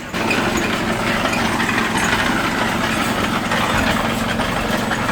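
Backhoe's engine running steadily under load, a constant hum with dense mechanical clatter over it, coming in suddenly at the very start.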